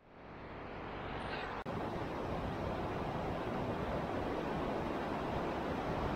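Steady rushing outdoor noise, fading in over the first second, with a split-second dropout about a second and a half in.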